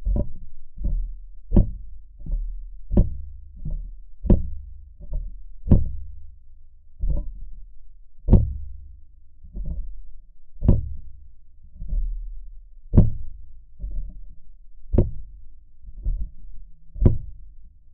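The rusted truck's sheet-metal body being knocked in a steady rhythm, picked up through a LOM GeoFon geophone on the body rather than through the air. The dull, ringing knocks come about two a second, with a louder one every second or third.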